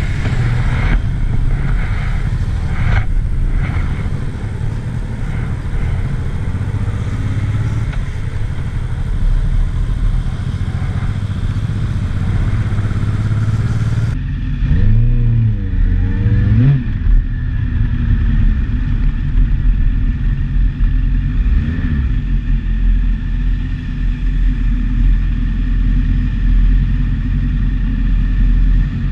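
Motorcycle engine running under way, with steady wind and road noise on the mounted camera's microphone. A little past halfway the sound turns duller, and the engine note rises and falls sharply as the rider revs and shifts, then again more gently a few seconds later.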